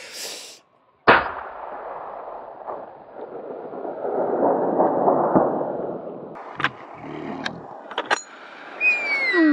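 A single hunting rifle shot about a second in, its report rolling and echoing for several seconds. Then come a few sharp clicks and a short falling-pitched call near the end.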